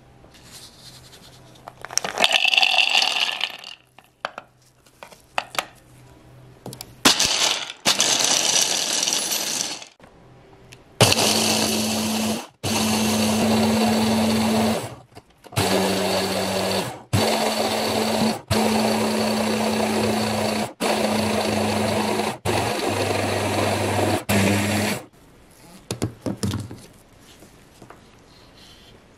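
Electric mini chopper grinding whole hazelnuts into a coarse meal, its motor run in about eight short pulses of one to two seconds each with brief stops between. Two shorter noisy bursts come before the motor runs.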